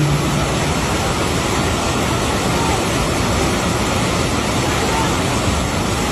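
Rushing floodwater: a torrent of muddy river water making a loud, steady wash of noise without a break.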